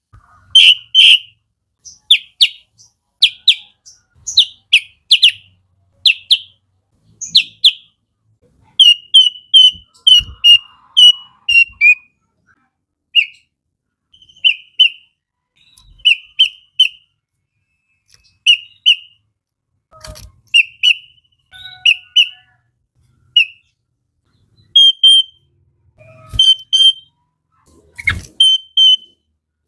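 Sooty-headed bulbul singing: short, loud, clear whistled notes, mostly in quick pairs or triplets, repeated with short pauses throughout.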